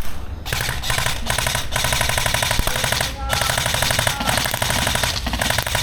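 Airsoft guns firing full-auto in long rapid bursts: an even rattle of shots that breaks off briefly about three seconds in and then resumes.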